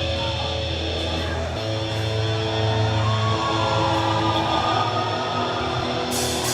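Instrumental intro of a rock song, with guitar playing held chords.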